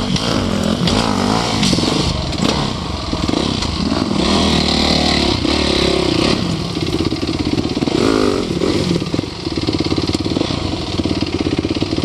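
Dirt bike engine revving up and down over and over as the rider works the throttle up a rocky climb, with a steady rumble beneath the revs.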